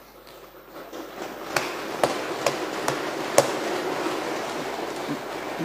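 Room noise of a legislative chamber rising about a second in, with five sharp knocks spread over the next two seconds.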